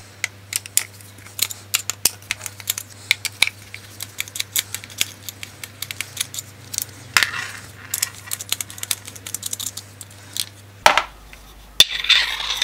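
Quick, irregular metallic clicks and ticks with short scrapes: a screwdriver turning and tapping small screws on a motorcycle engine's electronic ignition plate, with a steady low hum underneath.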